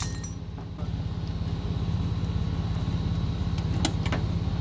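Vehicle engine idling with a steady, even low pulse, and a couple of sharp metallic clinks a little under a second apart near the end.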